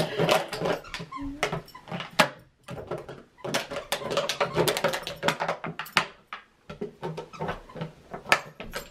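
Miniature schnauzer chewing and crunching a thick plastic water bottle: a dense, irregular crackling and crinkling of the plastic, with a few short pauses.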